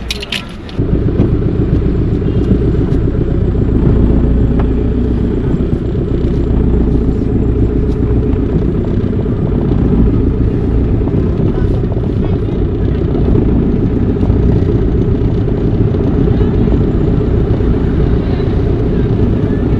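Steady wind rumble on the microphone and road noise from a moving vehicle, starting abruptly about a second in.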